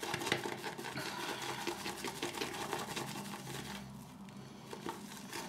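Small shaving brush whipping shaving-soap lather in a bowl: rapid, even strokes of wet squishing, easing off briefly about four seconds in before picking up again.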